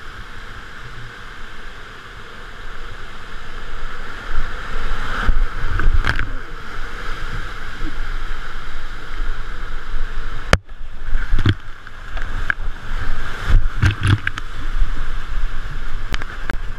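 Rushing whitewater of a steep creek rapid heard from a kayak running it, with sharp splashes and knocks several times. The sound briefly cuts out about ten and a half seconds in.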